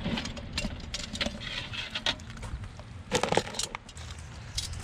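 Metal tongs clicking against an aluminium pot and the hard shells of boiled lobsters as they are lifted out of the water and dropped into a plastic bowl: scattered clicks and knocks, with a quick cluster of them about three seconds in.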